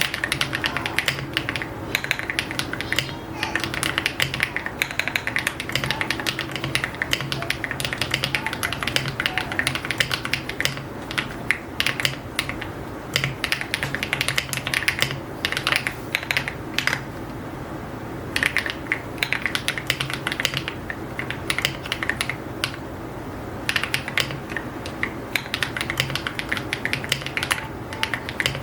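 Fast, continuous typing on an AULA F75 mechanical keyboard with pre-lubed HMX Latte linear switches and metal keycaps, keys clacking in quick runs with a couple of short pauses past the middle.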